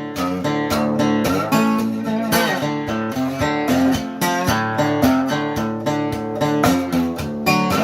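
Acoustic guitar playing an instrumental passage without singing: strummed chords with picked notes in a country or folk style.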